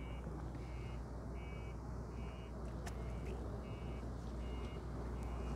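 A vehicle's reversing alarm beeping steadily, about two beeps a second, over a steady low rumble. A single sharp click about three seconds in.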